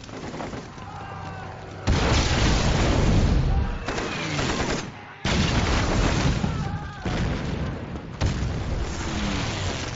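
Bomb explosions in a film air-raid sequence: three heavy blasts hit suddenly about two, five and eight seconds in, each trailing off in a long rumble, with voices calling out between them.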